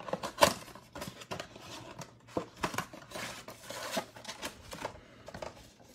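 A Mosaic basketball card blaster box being handled and unpacked: plastic shrink wrap crinkling and cardboard card packs scraping and tapping as they come out of the box, in an irregular run of small clicks and rustles.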